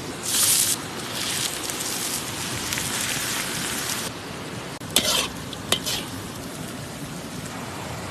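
Food sizzling as it fries in a hot pan, with a brief loud surge of sizzle near the start and a steady hiss that dies down about four seconds in. Two sharp knocks of a utensil on the pan about five and six seconds in.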